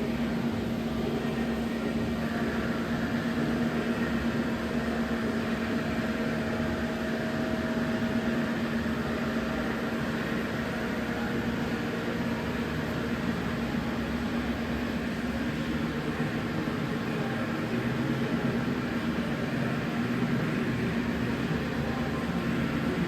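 Biglia B1200 CNC lathe running with a steady machine hum and a constant low tone. A faint higher whine comes in about two seconds in.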